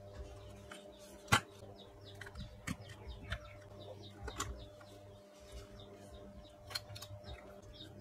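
Small clicks and knocks of hands handling a speaker amplifier board and its metal panel while unplugging plastic wire connectors, with one sharp click about a second in. A steady low hum runs under it.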